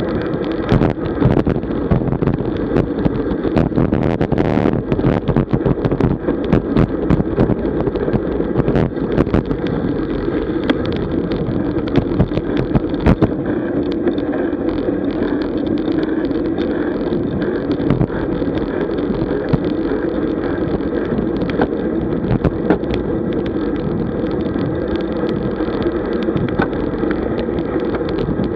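Steady wind rush over the microphone and tyre noise from a road bicycle riding in a group at around 40 km/h, with frequent short clicks and rattles throughout.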